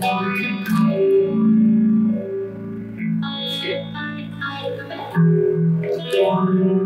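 Stratocaster-style electric guitar played through a phaser pedal: picked notes and held chords carrying the sound the player calls typical of a phaser.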